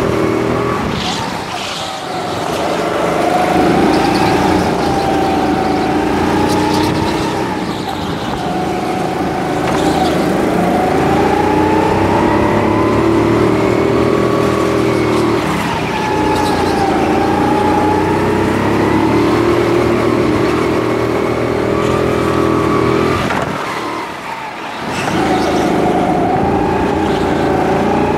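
Go-kart engine running hard through a lap, heard from on board, its pitch rising and falling with the throttle. It drops away briefly a few times as the driver lifts off for corners, most deeply about 24 seconds in.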